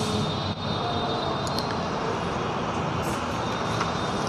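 Steady background noise, an even hiss and rumble with no distinct events, in a pause between speech.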